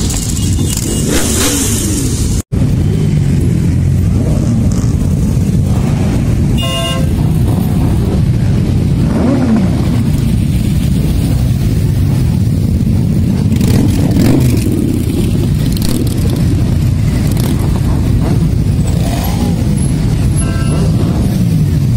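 Many motorcycles passing slowly in a dense column, their engines running together in a steady loud din, with single bikes revving up and down as they go by. The sound drops out for an instant about two and a half seconds in, and a horn sounds briefly near seven seconds.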